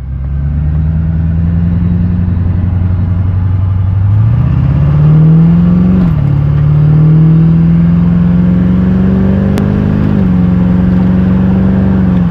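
The 2003 LB7 Duramax turbo-diesel V8 is running, loud and steady. Its engine note climbs and then drops sharply about six seconds in, climbs again and drops once more about ten seconds in, the pattern of engine speed rising and falling twice, as in pulling through upshifts.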